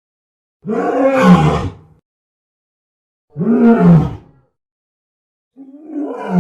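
Movie giant-gorilla roar sound effects: three separate roars, each about a second long with a falling pitch, cut apart by dead silence.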